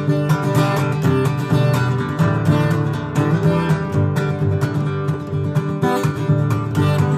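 Steel-string acoustic guitar strummed, playing chords in a steady rhythm.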